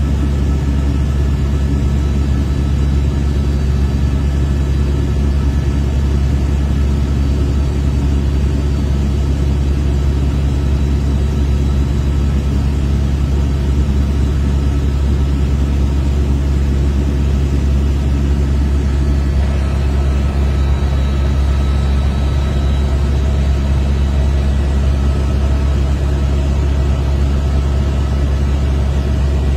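Steady low drone of a helicopter's engine and rotor, heard from inside the cabin.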